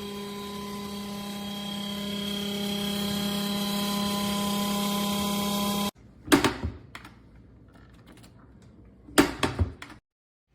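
BougeRV 42-quart 12V portable compressor fridge-freezer running with a steady hum that grows a little louder, then stops suddenly about six seconds in. Two short clattering knocks follow, about three seconds apart.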